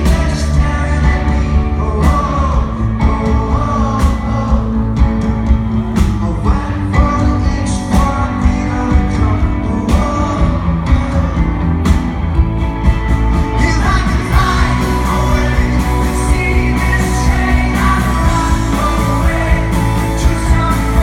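Alternative rock band playing live: lead vocals over guitars, bass and drums, with a steady beat and a strong drum hit about every two seconds.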